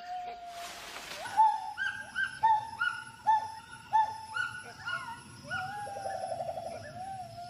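Gibbon hooting: a run of short whoops that rise and fall, about two a second, with a fast quavering trill a little past the middle. Just before the whoops, about a second in, there is a brief rush of noise.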